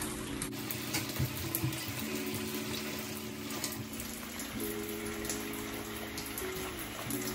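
Shower water running steadily into a bathtub, with soft background music holding chords that change a few times.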